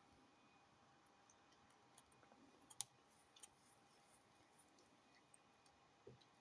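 Near silence with faint scattered clicks, a sharper click about three seconds in, and a brief low sound near the end.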